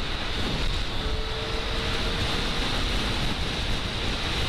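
Steady rush of wind on the microphone of a Honda CBR 600 F motorcycle at motorway speed, with the bike's running noise beneath it.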